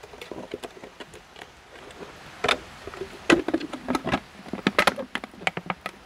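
Irregular crinkling clicks and taps of a thin clear plastic drink bottle, cut in two, as its halves are handled and pressed back together. The clicks are sparse at first and come thick and fast from about halfway in, with the sharpest snaps near the middle.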